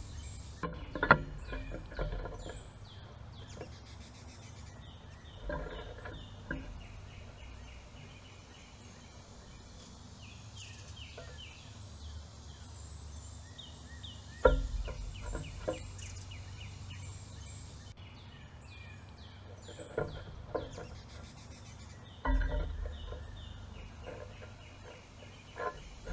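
Songbirds calling in repeated series of short, high chirping notes, with occasional sudden knocks and flutters as birds land on and leave the backyard feeders.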